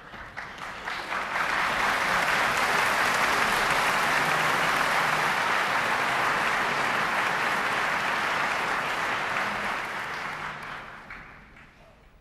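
Concert hall audience applauding between pieces. The clapping swells over the first second or two, holds steady, then dies away near the end.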